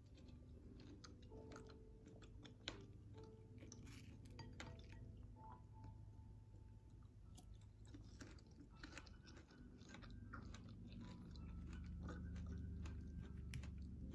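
Faint close-up chewing of fresh berries, a steady run of small, irregular mouth clicks and crunches.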